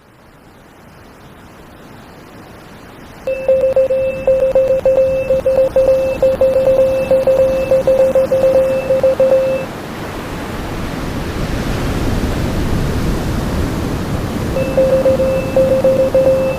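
Mock emergency alert alarm: a single steady tone with a fast wavering pulse. It starts about three seconds in, stops after about six seconds, and returns shortly before the end. Under it, a tsunami sound effect of rushing water builds throughout and swells loudest in the gap between the tones.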